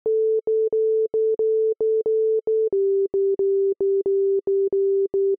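Arturia Pigments soft synth playing its internal step sequence with a plain, pure tone: short repeated notes about three a second, each starting with a slight click. The pitch steps down about halfway through.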